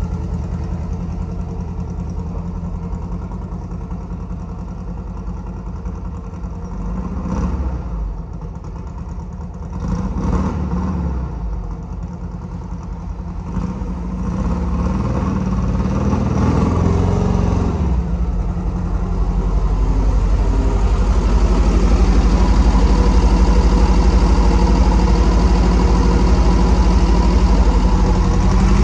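Sand rail's engine running: it rises and falls in pitch as it revs several times while the buggy is driven down the street, then grows louder as it comes back and runs steadily close by.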